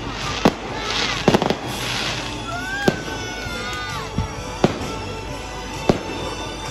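Fireworks going off overhead: about eight sharp bangs at uneven intervals, with a quick cluster of cracks about a second and a half in, over a continuous crackle.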